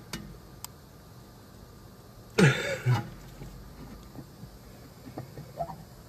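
Faint clicks and knocks of hands working a brake caliper, its piston being pushed back into the bore by hand. About halfway through, a man makes a short, loud throaty sound.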